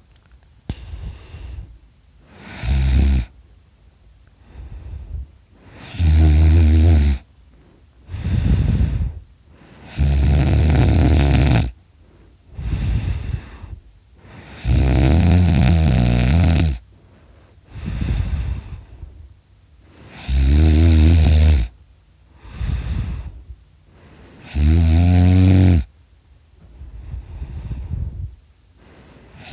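A sleeping person snoring very loudly: six long, low snores about four to five seconds apart, with quieter breaths between them.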